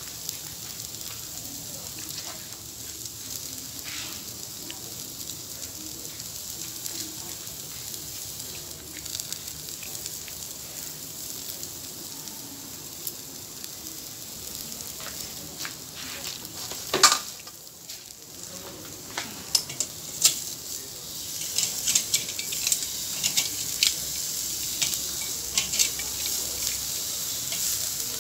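Satay skewers grilling over glowing charcoal: a steady sizzle with scattered crackles and pops. One sharp pop comes a little past halfway, and the crackling gets busier toward the end.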